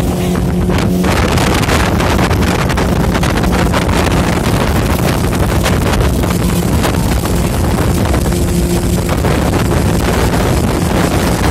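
Speedboat engine running steadily at speed, a constant low drone under heavy wind buffeting on the microphone.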